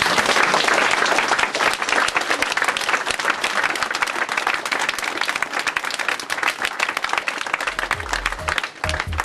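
Audience applauding, a dense patter of many hands clapping. Near the end, music with deep bass notes comes in underneath.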